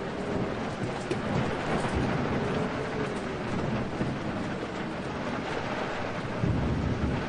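Steady heavy rain with thunder rolling low underneath, the rumble swelling about a second and a half in and again near the end.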